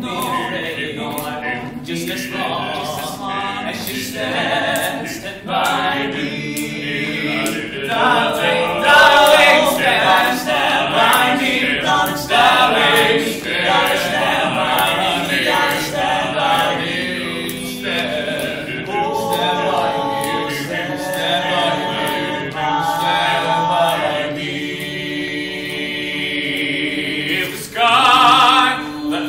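A group of voices singing together, choir-like, in a cappella style.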